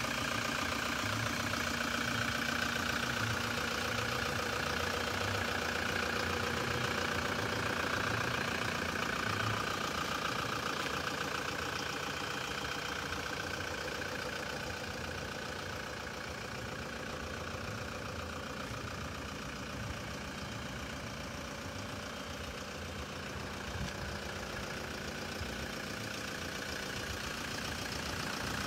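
Toyota Hilux 3.0 D-4D four-cylinder turbodiesel idling steadily.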